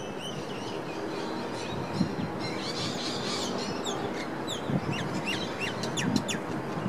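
Birds calling with quick chirps and short downward-sweeping notes, thickest from about halfway through, over a steady background of distant city traffic.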